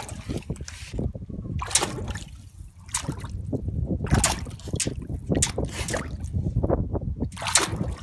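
A cat's paw splashing in shallow water in a bathtub as it swipes at live fish, with irregular slaps and sloshing of water several times over.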